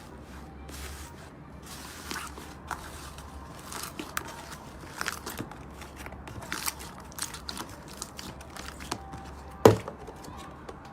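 Slime being pressed and squeezed by hand, giving irregular squishy clicks and crackles, with one sharp pop near the end.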